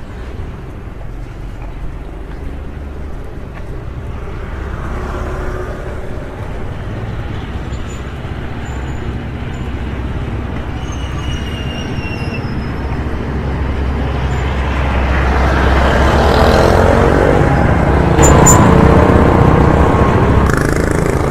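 Road traffic: vehicle engines running with a steady low rumble that builds, loudest about three quarters of the way through as a vehicle passes close by.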